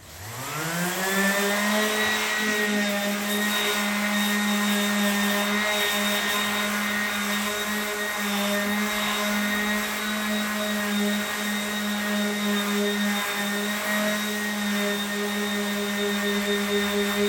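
Electric power sander switched on: its motor spins up with a rising whine over about a second and a half, then runs at a steady hum.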